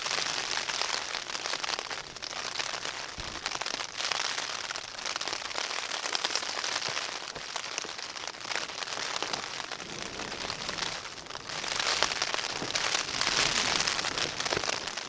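Rain falling on the flysheet of a Nortent Vern 1 tent, heard from inside: a continuous hiss of many close drop hits, heavier at the start and again about twelve seconds in.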